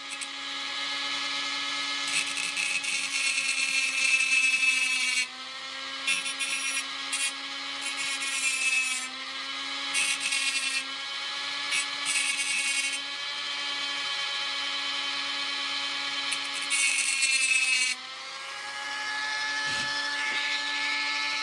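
Cordless rotary tool with a small cutting disc running with a steady whine while it cuts through the sheet-metal shield on a phone motherboard, with several spells of harsh grinding as the disc bites into the metal. Near the end the grinding stops and the tool spins freely, its whine rising slightly as the disc comes off the metal.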